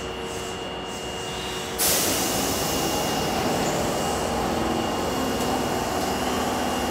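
Osaka Metro Tanimachi Line 22-series subway train standing in a station with a low steady hum. About two seconds in, a sudden steady hiss sets in and holds.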